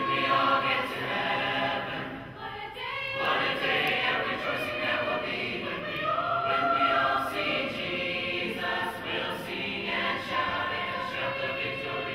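Large mixed chorus of teenage boys' and girls' voices singing a hymn a cappella in full harmony, holding long chords that change every second or two.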